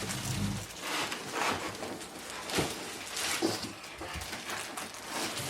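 Irregular rustles, scrapes and light knocks of a large cardboard box and its contents being handled and turned over.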